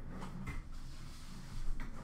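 Light handling noises of cards and packaging on a counter, with two soft knocks, about half a second in and a louder one near the end.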